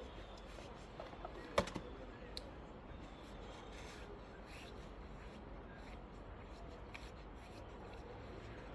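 Faint crunching and scraping of snow being handled and packed, with one sharp click about a second and a half in.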